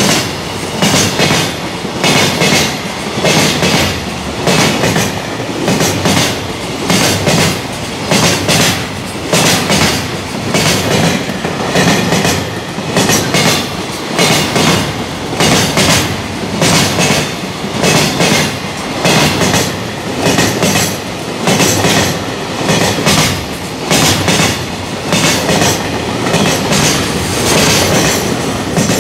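Long container freight train passing at speed, its wheels clacking over the rail joints in a steady rhythm: a quick cluster of clacks about once a second as each wagon's wheels cross the joint.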